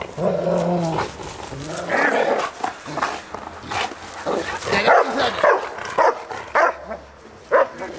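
Bernese Mountain Dog play-barking during a rough bite-and-tug game, with a string of short, sharp barks in the second half.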